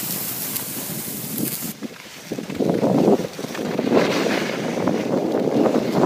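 Wind buffeting the microphone of a camera carried by a skier moving downhill, with a high hiss of skis sliding on snow that cuts off abruptly under two seconds in. From about halfway, the wind rumble gets louder and more gusty.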